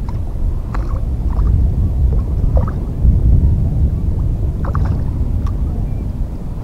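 Wind rumbling on the microphone, with a few short splashes as a hooked tilapia thrashes at the water's surface.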